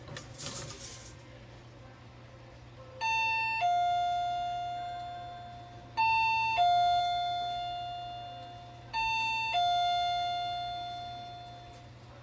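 Electronic two-note ding-dong chime sounding three times about three seconds apart, each high note falling to a lower one that slowly dies away. A steady low hum runs underneath, and a short hiss comes in the first second.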